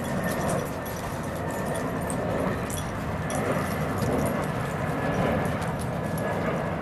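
Footsteps crunching on gravelly dirt ground, a patter of small clicks over a steady outdoor rumble.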